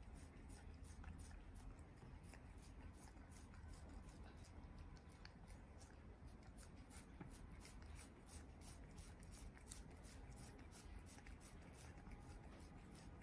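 Faint, quick, irregular wet clicks of a cat licking a lollipop, over near silence.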